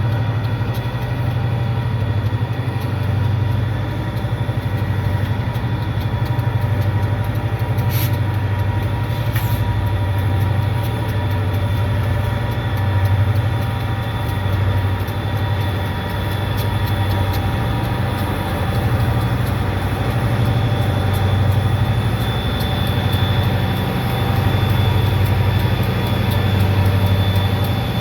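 Turbocharged EMD high-hood GP diesel-electric locomotives working under load while switching cars: a deep, pulsing diesel drone with a steady high-pitched turbo whine on top, the whine growing stronger in the second half. Two brief sharp clicks come about a second and a half apart, some eight seconds in.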